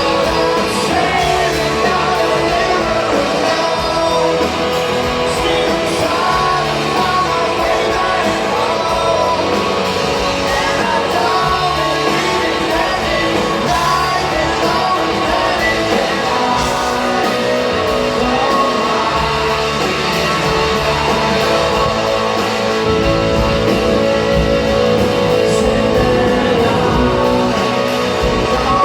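A live rock band with electric guitars playing a song with a lead vocal, loud and continuous, with the echo of a large concert hall.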